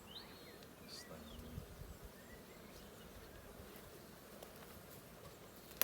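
Honey bees buzzing at an opened hive, a faint steady hum, with one louder low buzz about a second in as a bee passes close. A sharp click near the end.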